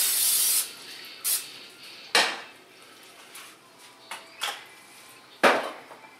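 Aerosol cooking spray hissing into a stainless steel pot to grease it, stopping about half a second in; then a few sharp metal knocks and clanks as the pot and can are handled and set down on a glass-top stove, the loudest about two seconds in and again near the end.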